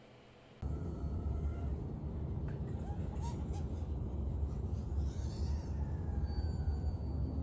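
Wind buffeting the microphone: a heavy, uneven low rumble that cuts in about half a second in.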